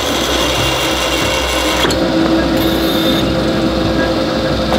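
Pottery-forming machines running while making earthenware pots: steady mechanical noise from the spinning molds and the metal tool shaving the clay, with a steady hum underneath.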